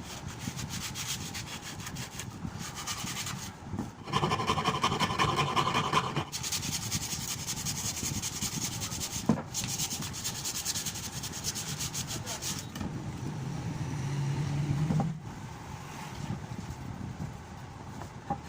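Sandpaper rubbing rapidly back and forth on the wooden handle of a cricket bat, louder for a couple of seconds about four seconds in.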